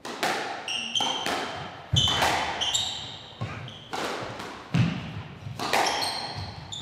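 Squash rally: the rubber ball cracking off rackets and the court walls in quick succession, each hit ringing in the hall, with shoes squeaking briefly on the court floor between shots.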